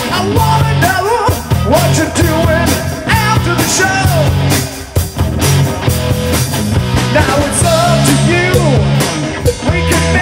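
Live rock band playing loudly: a singer on a microphone over electric guitar, bass guitar and drum kit.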